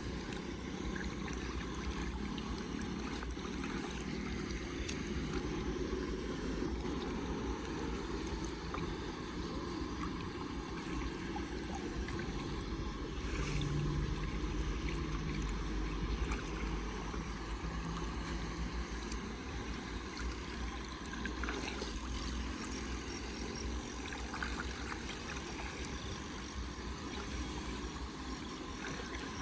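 Floodwater rushing steadily, a continuous noisy wash with a low rumble beneath it.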